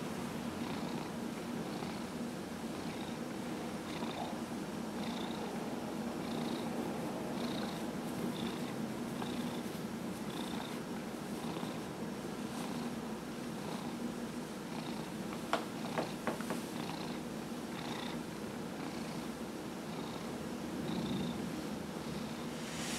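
Domestic cat purring steadily while being massaged, the purr pulsing about once a second with its breathing. A few short clicks come about two-thirds of the way through.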